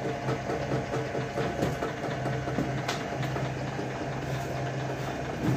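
Homemade semi-automatic chain-link fence machine running on its electric motor and weaving wire: a steady mechanical hum with a sharp click about three seconds in.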